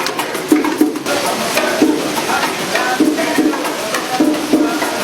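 Latin-style music led by hand percussion: a steady rhythm of drum hits and clicking, woodblock-like strokes, with a pitched instrument playing over it.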